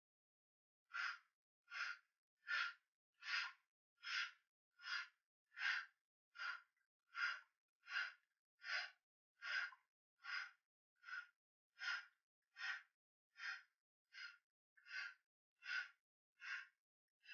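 A woman's short, quiet breaths in a steady rhythm, one on each bounce of a squat pulse, a little over one a second.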